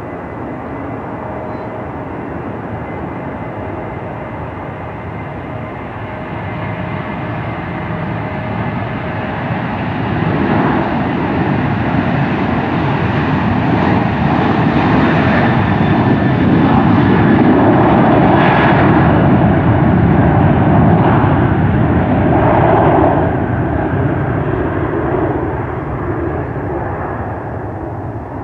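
Boeing 737 jet at takeoff power on its takeoff roll: a steady engine rush with a faint whine, growing louder as it comes past, loudest in the middle and fading near the end as it rotates.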